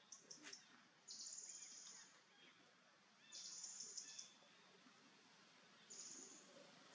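Faint high-pitched animal calls in three steady bursts, each about a second long, with a quiet gap of a second or two between them.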